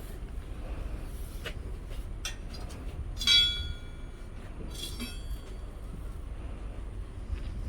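Metal tools clinking, with one ringing metallic clang about three seconds in and a fainter one around five seconds, plus a few light clicks over a steady low rumble.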